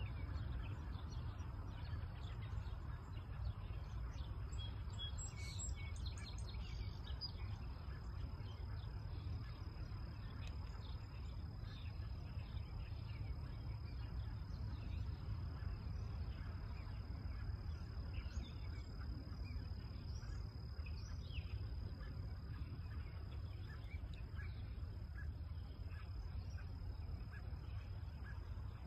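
Rural outdoor ambience: a steady low rumble of wind on the microphone, with scattered short bird chirps and a thin, steady high-pitched tone throughout.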